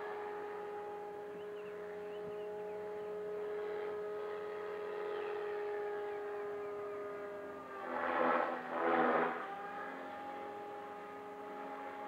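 Electric radio-control model aircraft in flight: a steady motor-and-propeller whine with several layered tones, its pitch shifting slightly. Two brief louder rushing sounds come close together about two-thirds of the way in.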